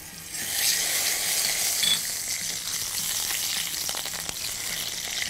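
Ghee sizzling as it melts in a hot saucepan and is stirred with a spoon. The sizzle starts about half a second in and runs on steadily.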